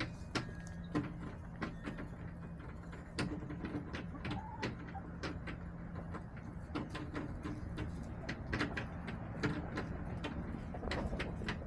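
Backyard hens in a plastic coop: many irregular sharp taps and clicks as they peck and scratch, with a few soft low clucks.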